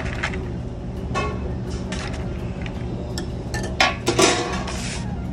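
Metal serving spoon clinking and scraping against stainless steel steam-table pans and lids while scooping rice, with a louder clatter about four seconds in, over a steady low hum.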